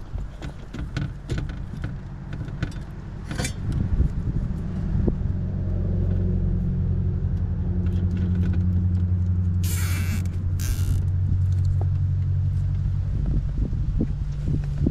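Two quick ratcheting zips of nylon zip ties pulled tight around control wiring, about ten seconds in, amid small clicks of wires being handled. Under them runs a steady low engine-like hum that fades out near the end.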